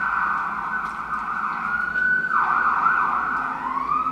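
Emergency vehicle siren wailing: it holds a high pitch, falls sharply a little past two seconds in, and rises back near the end.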